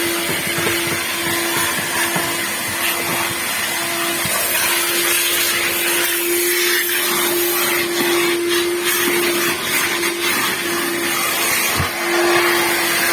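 Steady machine noise: a constant hum over an even hiss.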